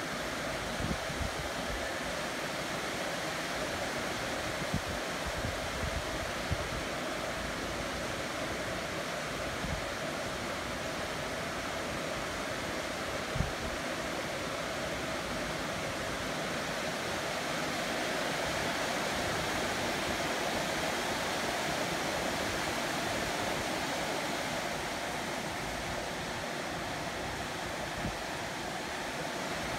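Heavy rain falling steadily, an even hiss with no break, swelling slightly a little past the middle. A few brief low thumps stand out in the first half.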